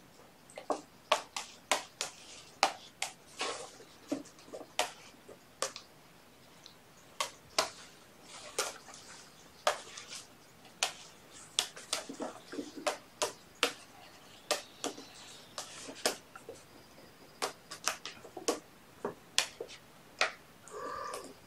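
Kittens playing on toys and hard surfaces: irregular sharp clicks, taps and scratches from small claws and paws, one to three a second.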